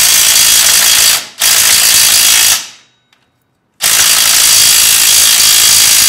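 DeWalt Atomic 20-volt brushless compact impact driver hammering on a 5/8-inch transmission mounting bolt in three long bursts with short pauses between. The bolt does not break loose: the small impact lacks the power for it.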